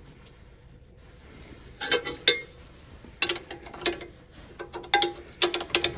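A hand wrench on a bolt, making irregular sharp metallic clicks and clinks, a few about two seconds in and a denser run from about three seconds on. The bolt is spinning rather than tightening.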